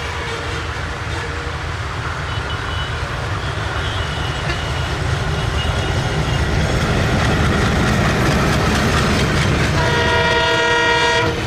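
ALCO WDM-3A diesel locomotive running under power as it approaches and passes close by, its low engine rumble growing steadily louder. Near the end a locomotive horn blows one chord-like blast of about a second and a half, then cuts off.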